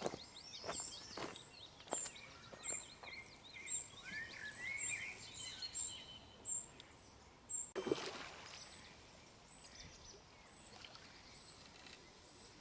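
Wild birds singing and chirping faintly, with a high note repeating about twice a second. A few light knocks sound in the first couple of seconds and one sharp click about two-thirds of the way through.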